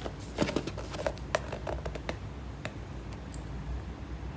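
Cardboard battery box handled by hand, picked up and turned over: a scatter of light taps and clicks, most of them in the first two seconds.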